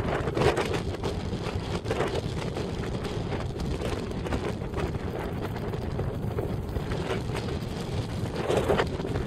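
Wind of about 10 m/s buffeting the camera's microphone: a steady low rushing rumble, swelling in gusts about half a second in and again near the end.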